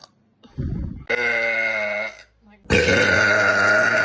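A woman burping loudly: a burp of about a second starting about a second in, then a longer, drawn-out burp from near three seconds in that is still going at the end.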